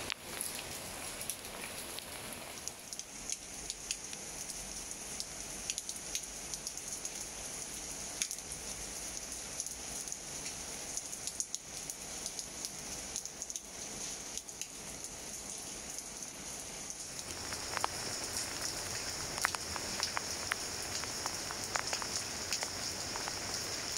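Steady rain falling: a continuous hiss with many separate drops ticking. It grows louder and denser about two-thirds of the way through.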